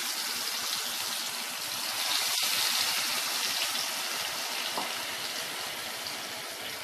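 Masala-coated catla fish pieces deep-frying in hot oil in a kadai: a steady, hissing sizzle that grows gradually quieter toward the end.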